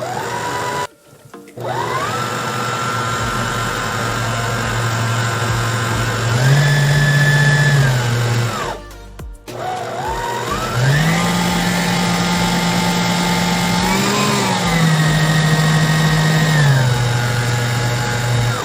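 Electric stand mixer motor whining as it whips cream, stepping up to a higher speed and back down twice, with two brief breaks.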